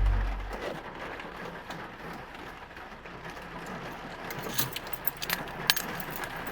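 A heavy thud's low rumble fades away, then a steady low hum; from about four and a half seconds in, keys jingle with light metallic clicks.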